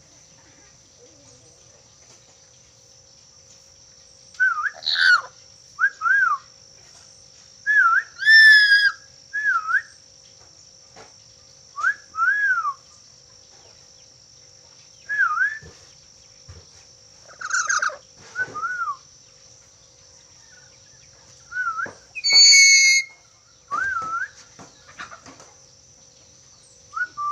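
Black-capped lory whistling: short whistles that rise and fall in pitch, repeated every second or two from about four seconds in. A few louder, harsher calls come among them. A faint steady high whine runs underneath.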